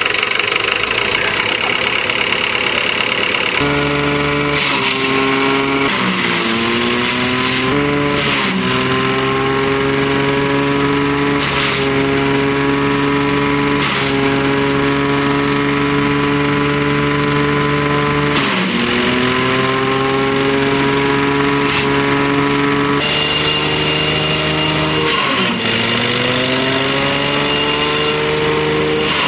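Mahindra 575 DI tractor's diesel engine driving a PTO banana-waste shredder at speed. Its pitch sags sharply and climbs back about five times as banana stems are fed in and load the rotor, with a few sharp cracks.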